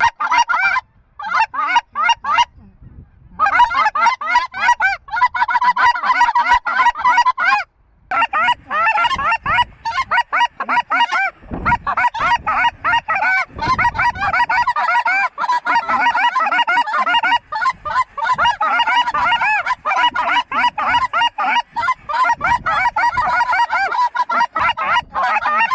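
A large flock of geese calling as it flies over: a dense chorus of many overlapping honks. After a few seconds of short spells, it runs without a break. Occasional wind gusts buffet the microphone.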